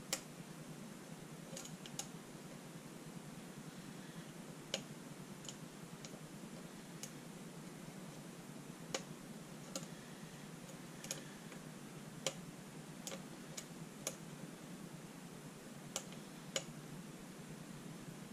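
Faint, irregular clicks of a hook pick lifting the pins of a pin-tumbler challenge lock held under tension, about a dozen scattered over a steady hiss. The lock is in a false set, with the picker working pins 1 and 2.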